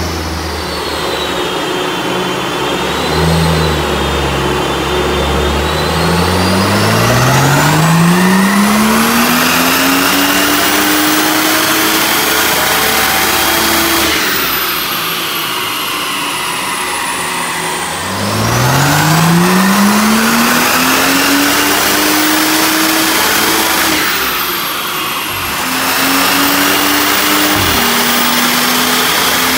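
Car engine on a chassis dyno doing two full-throttle power runs: each time the revs climb steadily for about six to seven seconds and then drop away when the throttle is lifted. After the second run the engine runs steady, and a whine rises and falls with the revs.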